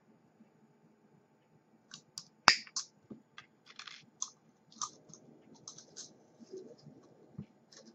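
Small clicks and ticks of thin nichrome wire being handled and snipped with cutters, starting about two seconds in, with one sharp snap about two and a half seconds in.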